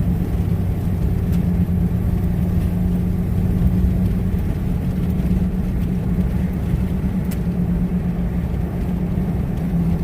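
Pickup truck driving, heard from inside the cab: a steady low drone of engine and road noise.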